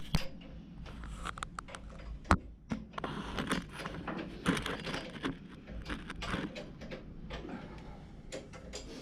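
Irregular clicking and knocking of small objects being handled, with a few louder knocks, one sharp one about two seconds in.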